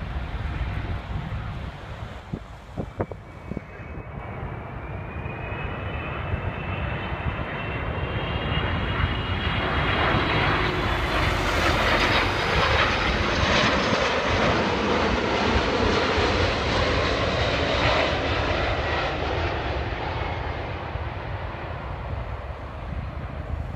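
TAP Airbus A330 airliner on final approach flying low past: steady jet engine rumble with a high whine that rises slowly in pitch, growing louder to a peak about halfway through and then fading as the aircraft moves on toward touchdown.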